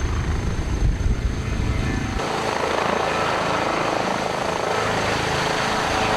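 Airbus H160 helicopter, powered by Turbomeca Arrano engines, in flight: a loud, fast-pulsing low rotor rumble. About two seconds in, the sound changes abruptly to a higher turbine rush as the low rumble drops away.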